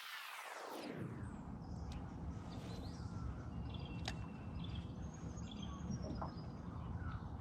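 Small birds chirping several times over a steady low outdoor rumble. A sound sweeps down in pitch during the first second.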